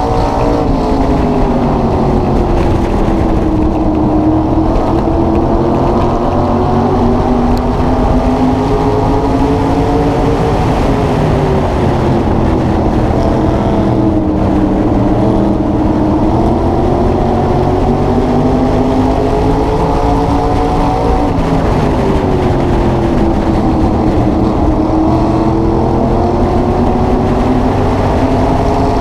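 SK Modified race car's carbureted V8 engine at racing speed, heard on board. Its pitch drops three times as the driver lifts for the corners and climbs back under throttle down the straights.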